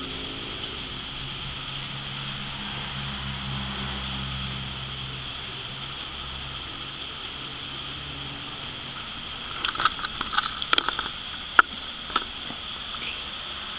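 Steady outdoor hiss with a low engine-like hum that fades out about halfway through. Then a cluster of sharp clicks and taps comes about ten to twelve seconds in.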